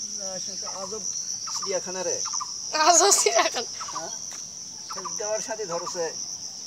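Insects drone steadily at a high pitch throughout. Over the drone come repeated short, wavering calls, loudest about three seconds in.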